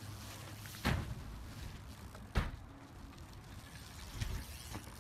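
Two sharp thuds of a BMX bike's impacts about a second and a half apart, then lighter knocks near the end.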